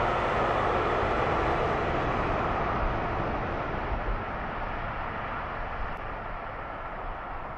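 A passenger train's coaches running past and receding, a steady rush of wheels on the rails that slowly fades and dulls. There are a few low thumps of wind on the microphone.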